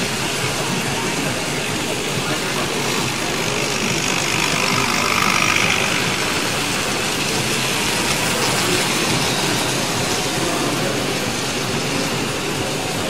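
Tri-ang TT gauge model train running round the layout, a steady mechanical running noise that swells about four to six seconds in, over the constant background noise of a busy hall.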